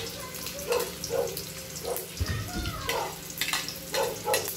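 Chopped onion and chili tipped from a plastic bowl into a hot wok, frying in oil on a gas stove, with a spatula knocking and scraping against the bowl and pan several times over a steady hiss.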